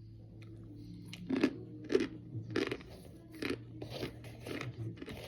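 Crisp crunching bites and chewing of a baked, microwaved brick of pressed Kingsford's cornstarch. A string of sharp crunches comes roughly every half second, starting about a second in.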